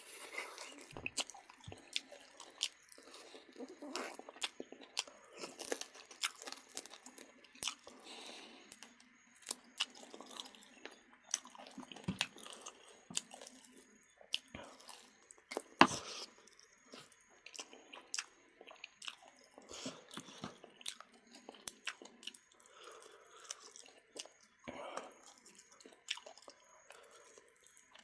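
A person chewing and biting into duck at close range, with crunches and sharp mouth clicks at an irregular pace; one click about halfway through is much louder than the rest.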